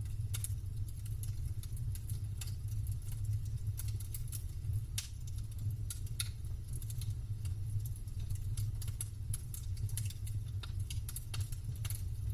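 Campfire burning, its wood crackling in irregular sharp pops and ticks over a steady low rumble.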